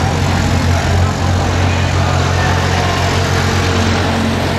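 A large engine running steadily at idle, a low constant hum under a haze of outdoor noise.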